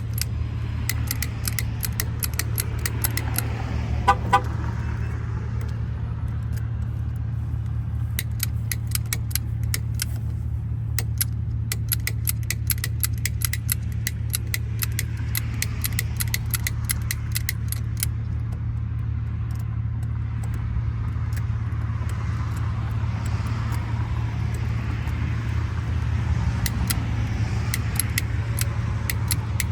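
Small sharp metallic clicks and ticks from lock-picking tools working a padlock, coming in irregular runs, over a steady low engine-like hum. A short double beep sounds about four seconds in.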